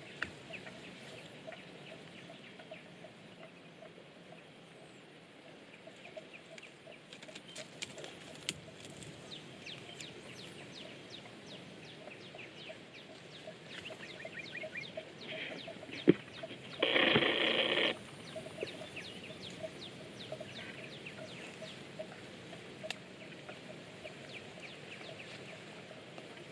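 Open-field ambience: a low steady hiss with many quick, high chirps, and one loud animal call lasting about a second, about 17 seconds in, just after a sharp click.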